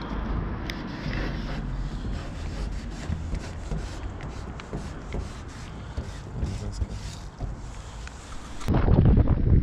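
Wind buffeting the microphone as a steady low rumble, with faint scratching and ticking of a paint marker's tip dragged across a painted surface. Near the end the wind noise turns suddenly much louder.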